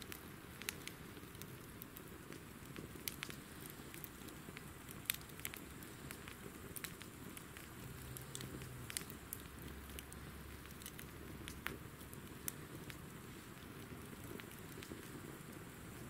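Wood fire burning down to embers, crackling with irregular sharp pops and snaps, the loudest about five seconds in.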